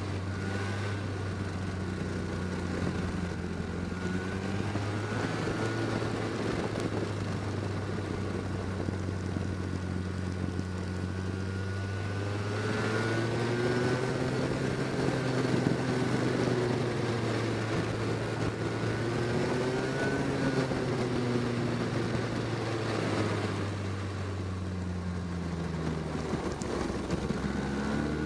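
Go-kart engine running under load, heard from on board the kart, its pitch rising and falling as it is throttled through the corners.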